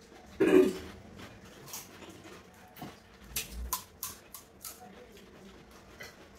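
Scattered light clicks and crunches of people eating pani puri and handling plates, after a short vocal sound about half a second in.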